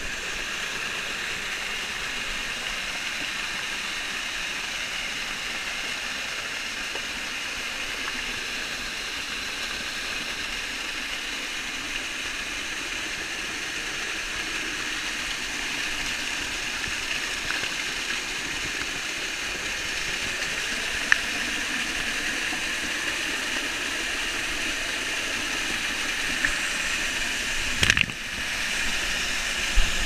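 Small waterfall pouring and splashing right at the camera, a steady rushing hiss that swells slightly over time. There is a sharp click about two thirds of the way through and a short knock near the end.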